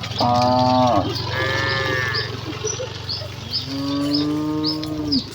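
Cattle mooing: three calls, the second higher-pitched and the last a long drawn-out moo. Behind them run a steady low hum and short high chirps that keep repeating.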